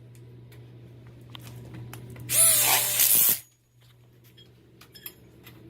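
Milwaukee cordless impact drill driving a screw into the steel frame tube, in one loud burst of about a second, a little before the middle. A steady low hum lies underneath, with a few light clicks.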